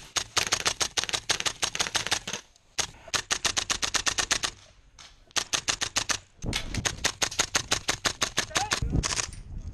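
Tokyo Marui M4 MWS gas-blowback airsoft rifle firing on full auto in four long bursts with short gaps between them, about ten sharp clacks a second as the bolt cycles. A low rumble sits under the last burst.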